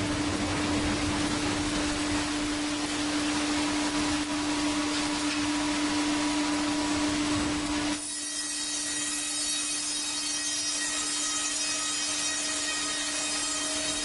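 Band sawmill cutting a log: a steady low hum under a loud rushing noise of the blade in the wood. About eight seconds in it changes abruptly to a quieter, thinner high whine of a band blade sawing through the log.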